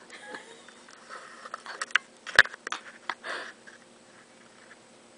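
A person sniffing sharply through the nose a few times, with several small clicks among the sniffs and one loud sharp click about two and a half seconds in.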